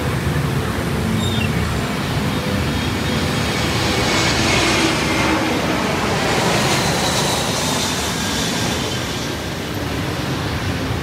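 Airbus A320-232 with IAE V2500 jet engines passing low overhead on final approach: a steady rushing roar with low rumble that swells about four seconds in, with a faint high whine that slowly falls in pitch.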